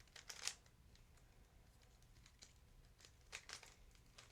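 Faint plastic clicks and rattles of a Rubik's cube's layers being turned by hand, in a few short clusters: one about half a second in and another just past three seconds.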